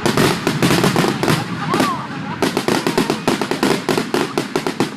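Fireworks and firecrackers going off in a rapid, near-continuous string of pops and bangs, easing briefly about two seconds in.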